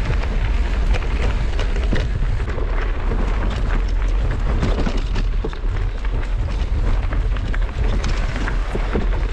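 Wind buffeting the microphone of a camera on a moving mountain bike, with tyres on a stony dirt singletrack and frequent clicks and rattles from the bike jolting over rocks.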